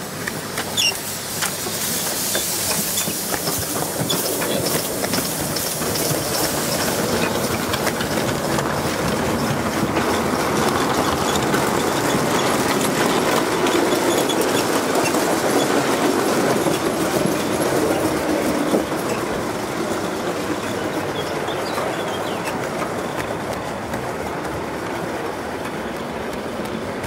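Gauge 1 live-steam model train running past close by, its wagon wheels clattering and clicking over the rails. The sound builds to a peak near the middle and eases off toward the end.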